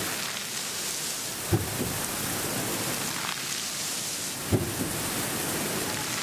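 Fountain jets spraying water that splashes down in a steady hiss, with a short low thump about a second and a half in and another about three seconds later.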